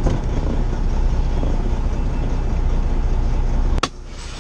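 Semi truck cab noise while driving: the engine and road noise running steadily. A sharp click near the end, after which the sound drops quieter.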